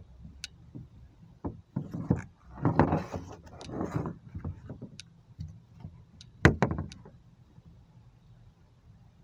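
Hard plastic car interior trim pieces being handled and shifted on a plastic wheelie-bin lid: irregular scrapes and knocks, with one sharp knock about six and a half seconds in, then only faint rustling.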